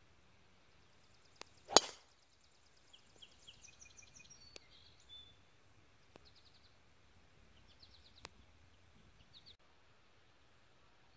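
A driver strikes a golf ball off the tee about two seconds in: one sharp, loud crack. Birds then chirp and trill quietly for several seconds.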